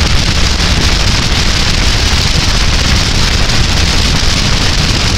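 Meteor-type hydrofoil under way: a steady, loud rushing noise of the vessel running and water spray, with no distinct engine tone standing out.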